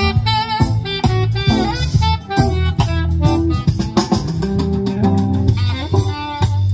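Live band playing an instrumental passage: a drum kit keeping a steady beat under electric guitar and saxophone.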